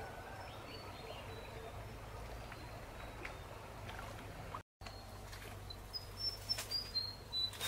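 Rural outdoor ambience: small birds chirping in short high calls over a low steady hum. In the second half a run of sharp rustles and knocks comes in, louder than the birds.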